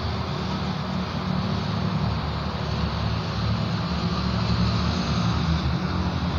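Steady low engine drone with a hiss over it.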